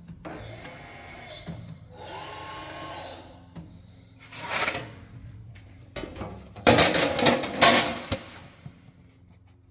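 LIMA SL-3 CNC sheet-metal rolling machine's motor-driven rolls whining through two short runs, each rising and falling in pitch. Then the thin rolled metal sheet flexes and rattles as it is handled, loudest in the last few seconds.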